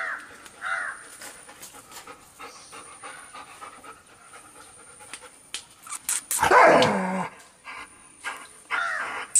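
A dog panting, with a few short pitched vocal sounds and one louder, longer call about six and a half seconds in that falls in pitch.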